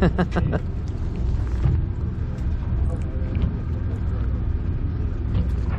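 Steady low rumble of the background noise aboard a fishing boat, with a brief voice right at the start.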